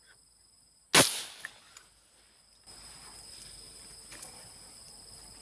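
A single airgun shot about a second in: a sharp crack that fades over about half a second, followed by a smaller click. The shot fires a fishing spear at something seen in the water, which turns out not to be a fish.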